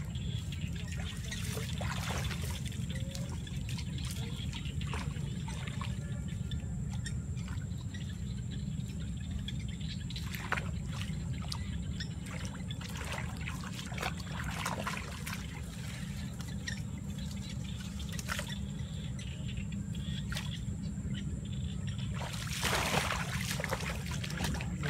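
Shallow muddy water splashing and sloshing as a person works a crab trap by hand and wades through it: scattered short splashes, with a longer burst of splashing near the end, over a steady low rumble.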